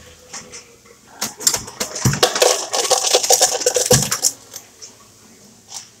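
Ice cubes clattering out of a fountain drink dispenser into a paper cup: a rapid rattle of many small hits starting about a second in and stopping about three seconds later, with a couple of dull knocks of the cup against the dispenser.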